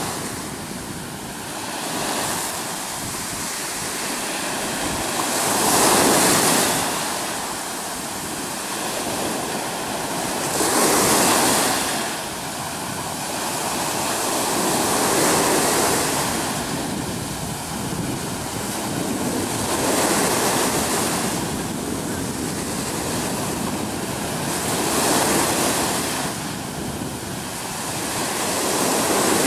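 Sea waves washing in and breaking against shoreline boulders, the surf swelling louder every four to five seconds.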